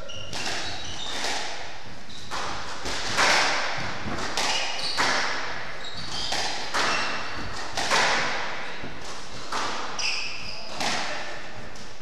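Squash rally: the ball cracks off rackets and the walls about once a second, each hit ringing briefly in the court. Short high squeaks of shoes on the wooden floor come between the hits.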